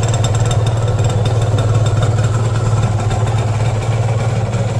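Yamaha TZM's two-stroke single-cylinder engine idling steadily when warm, at about 1500 rpm. It holds idle evenly, and with the carburetor freshly tuned it sounds good.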